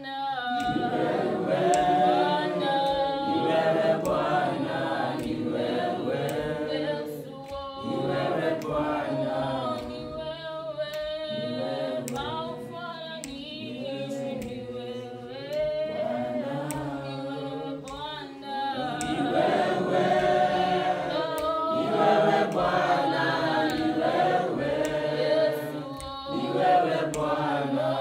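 A choir singing unaccompanied, several voices together in long held phrases.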